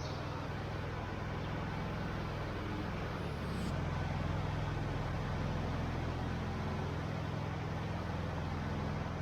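A vehicle engine running steadily, stepping up slightly in pitch and level about four seconds in.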